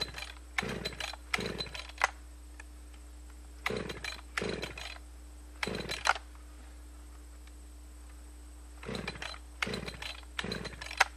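Husqvarna 562 XP chainsaw's recoil starter pulled about ten times in three bursts of pulls, the engine turning over without catching: the tank is out of fuel.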